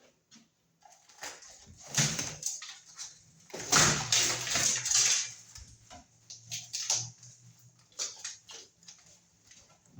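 Sheetrock being broken and pulled away from a wall: irregular scraping, knocking and crumbling. It is loudest in a burst about two seconds in and in a longer stretch from about three and a half to five seconds in.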